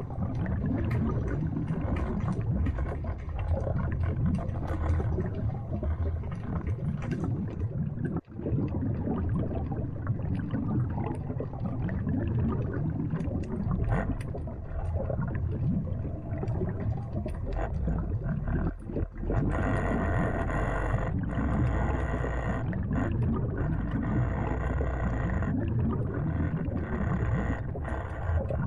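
Muffled underwater sound picked up by a submerged camera: a dense low rumble of moving water with scattered clicks and crackles. About two-thirds of the way in, a steady whining hum with several tones stacked over it joins the noise.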